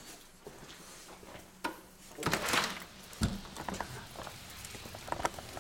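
A house door being opened: a brief rush of noise about two seconds in, then a low thump, followed by a few faint clicks.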